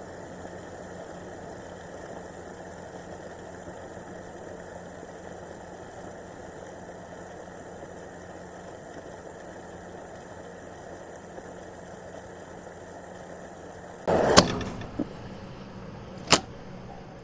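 A small motor running with a steady hum, broken about 14 seconds in by a loud knock, a smaller knock just after, and a sharp click near the end.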